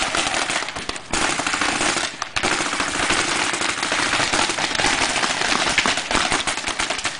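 Paintball guns firing rapid, continuous strings of shots, with brief pauses about one and two seconds in.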